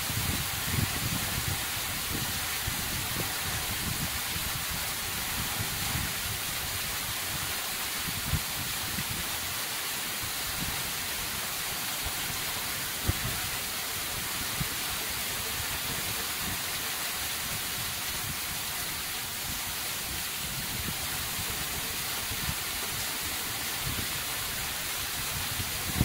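Waterfall spilling down a rock face, heard from behind the falling water: a steady hiss of spray and drops splashing into the pool and onto the rocks, with a few sharper splashes from drops landing close by.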